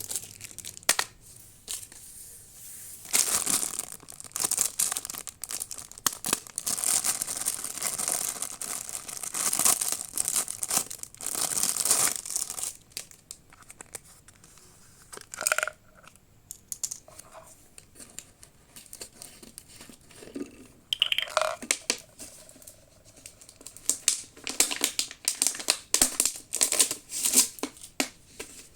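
Plastic packaging crinkling and tearing in irregular, crackly bursts as it is handled and pulled open, with quieter pauses between the bursts.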